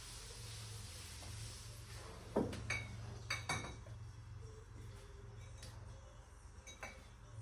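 Glass bottles clinking against each other and knocking on wooden shelving as they are handled and set down, with a cluster of sharp clinks in the middle and a couple of lighter taps later, over a faint steady low hum.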